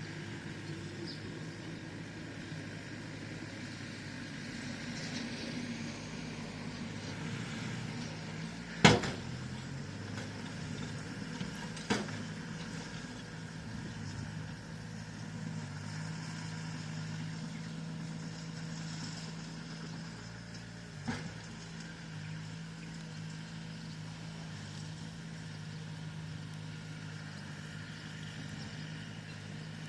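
Bulldozer's diesel engine running steadily under work. A sharp metallic knock stands out about nine seconds in, another comes about three seconds later, and a fainter one comes about two-thirds of the way through.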